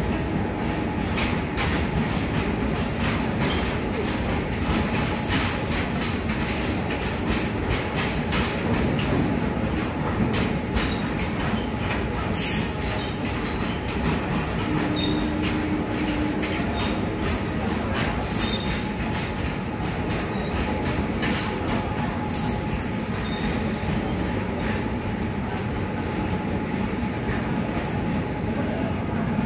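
Indian Railways freight train of covered wagons rolling past at speed: a steady rumble of steel wheels with many sharp clacks over the rail joints, and a brief wheel squeal about halfway through.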